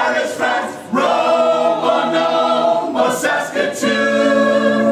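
Mixed choir of men's and women's voices singing unaccompanied in harmony, holding sustained chords, with two short breaks between phrases.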